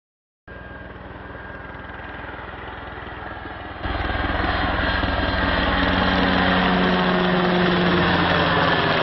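Firefighting helicopter hovering close overhead: a fast, steady rotor beat over the whine of the engine. It gets suddenly louder about four seconds in.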